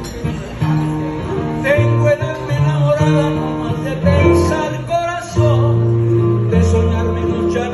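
Acoustic guitar played live: strummed chords over held bass notes that change every second or so.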